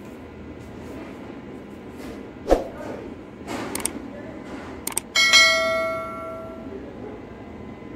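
A thump about two and a half seconds in, then a quick double click and a bell ringing out and fading over a second or so: the click-and-notification-bell sound effect of a subscribe-button animation.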